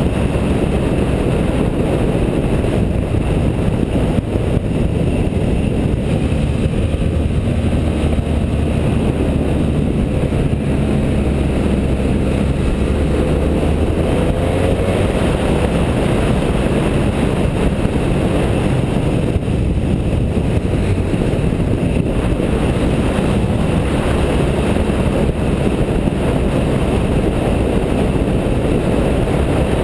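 BMW F650GS motorcycle engine running under way on a mountain road, heard from the bike itself with heavy wind rush over the microphone. The engine note grows stronger for a stretch about a quarter of the way in.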